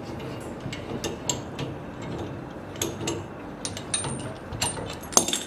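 Irregular small clicks and knocks of mechanical parts being worked by hand, with a brief thin high whine about four seconds in and a sharper click near the end.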